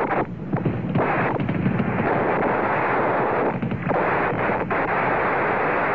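Saturn V's first stage, its five F-1 rocket engines, heard from the ground in flight: a steady, crackling roar on old television audio, dipping briefly twice.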